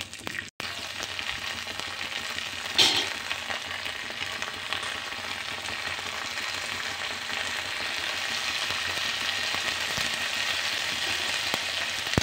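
Fresh green peas sizzling in a little hot oil in an aluminium kadhai, stirred at first with a slotted spatula scraping the pan. There is one sharp, louder scrape about three seconds in, and the sizzle grows steadily a little louder.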